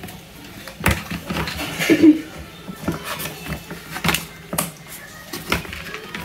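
Hard plastic toy parts clicking and knocking as pieces of a plastic toy doctor table set are handled and fitted together: a string of separate sharp clicks, with a short tonal sound about two seconds in.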